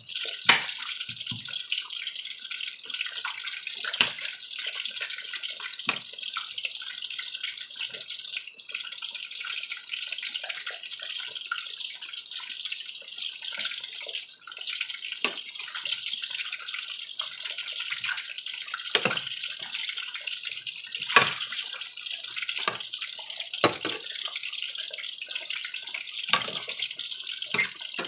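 Oil sizzling steadily in a frying pan as chopped tomatoes, onions and red bell pepper sauté down, with fine crackling throughout. Several sharp clicks or pops stand out, the loudest about half a second in and again around 4, 21 and 24 seconds.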